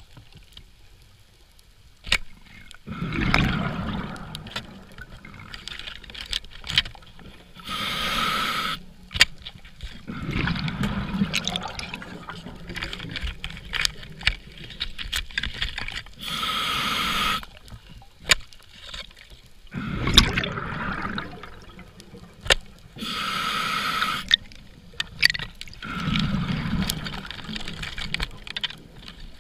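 Scuba regulator breathing underwater: a short hissing inhale through the regulator, then a longer low gurgling rush of exhaled bubbles, about one breath every seven or eight seconds. Light clicks and knocks come in between, from the pole spear working in a lionfish containment tube.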